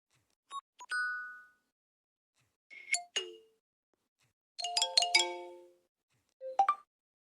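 LG phone notification tones: a series of short electronic chimes and blips played one after another with silence between them. There are four separate short sounds, and the third, near the middle, is a quick cluster of several notes.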